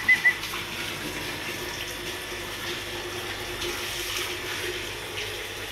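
Water running steadily from a pump-fed hose, with a faint steady hum under it. A small bird chirps a few quick times at the very start.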